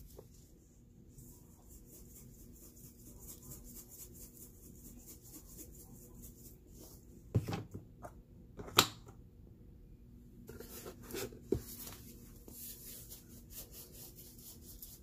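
Kitchen handling sounds: a few sharp knocks of containers and bottles against the counter, loudest twice around the middle. From about ten seconds in comes a soft rattle as seasoning is shaken from a bottle over a plastic bowl.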